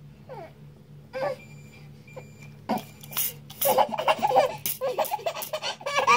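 Baby laughing in quick, rapid bursts, starting about three and a half seconds in.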